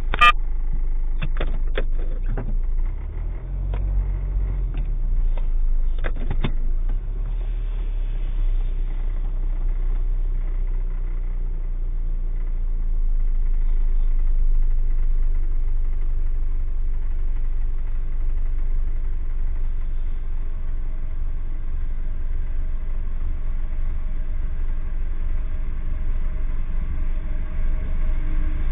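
Car engine idling while stopped, a steady low rumble heard from inside the cabin. A few sharp clicks come in the first six seconds or so.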